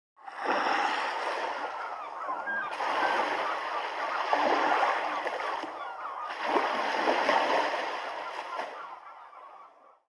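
A flock of birds honking and calling over one another in a dense chorus that swells three times.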